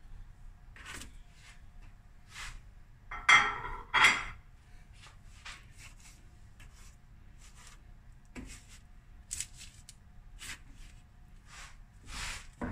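Hands moving raw lamb chops about on a parchment-lined baking tray, with soft rustling of the baking paper and meat throughout. Two louder clatters come a little over three and about four seconds in.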